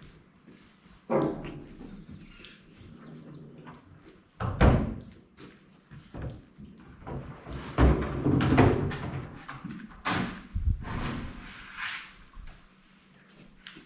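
Irregular bangs and thuds, several in a row, loudest about four and a half seconds in and again around eight seconds in.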